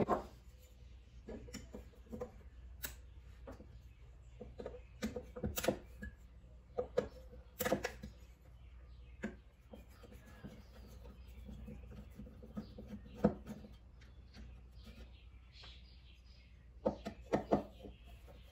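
Hand tools clicking, knocking and scraping on a metal engine control module case as it is pried and unscrewed on a workbench: scattered sharp clicks at an uneven pace, the loudest a knock right at the start, with a short cluster near the end.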